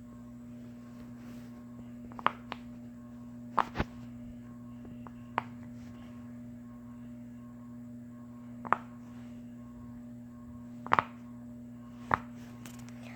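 A steady low electrical hum, with about eight short sharp clicks scattered through it from about two seconds in.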